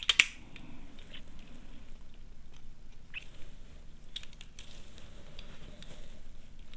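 Small clicks and scrapes of a screwdriver on a plastic switch board's terminal screws and of hands handling the board, with one sharper click just after the start.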